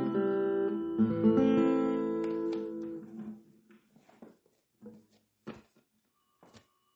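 Acoustic guitar music, held chords ringing and dying away about three seconds in, followed by a few faint short knocks.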